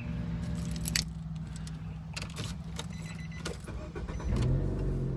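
Car engine running, heard from inside the car, with a few sharp clicks and rattles; about four seconds in the engine note rises and gets louder as the car pulls away.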